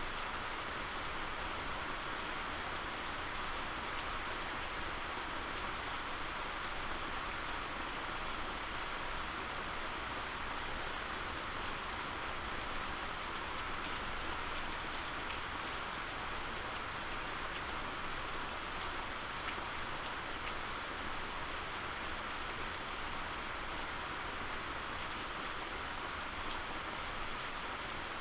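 Steady rainfall, a continuous even hiss of rain falling on surfaces with scattered individual drop ticks.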